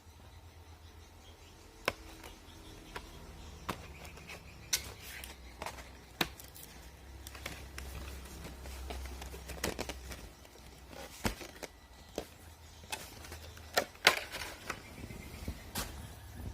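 Swiftlets giving sharp, irregular clicks, with brief twittering chirps now and then, over a low steady hum.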